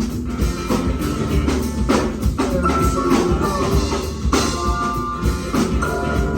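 Live band playing an instrumental stretch: a drum kit hits about twice a second over bass, with sustained high tones from a keyboard or sampler coming and going.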